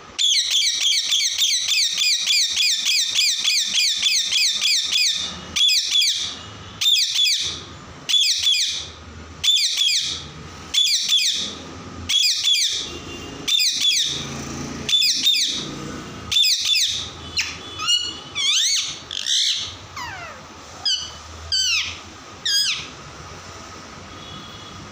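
Parrot calling: a fast run of shrill, repeated calls, then single calls about once a second, and near the end a few gliding calls before it goes quieter.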